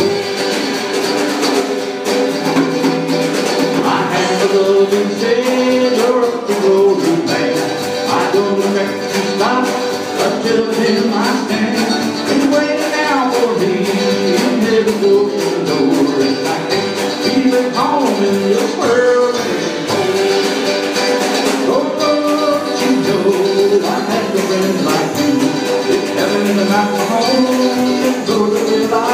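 Live small-band music: strummed acoustic guitar, mandolin and a drum kit, with a man singing over them.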